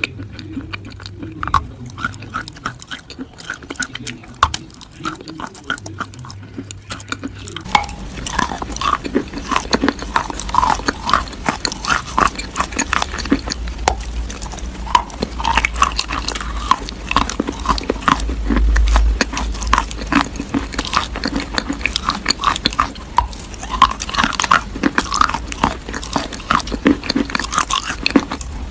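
Close-up chewing of something crunchy: a rapid, dense run of crackling bites, growing louder about eight seconds in.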